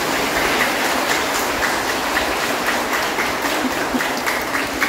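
A congregation applauding: dense, steady clapping at an even level.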